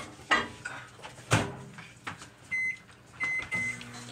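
A few knocks and clatters, then a microwave's keypad beeping three times about two and a half seconds in, after which the microwave starts running with a low steady hum.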